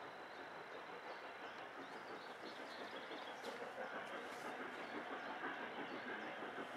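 Distant LNER A4 three-cylinder steam locomotive working hard as it pulls away with its train: a steady rush of exhaust and running noise, faint and growing gradually louder.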